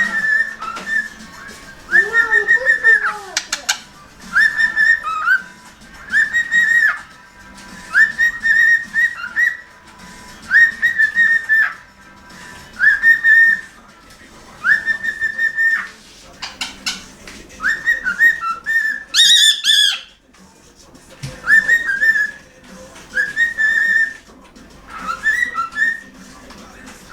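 Cockatiel whistling the same short high tune over and over, each phrase about a second long with brief pauses between. A sharper, brighter call comes about nineteen seconds in.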